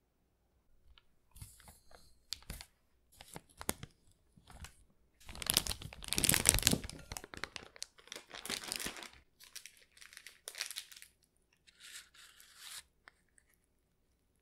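Thin plastic piping bag crinkling and rustling as it is handled, in a run of irregular bursts, the longest and loudest about five to seven seconds in.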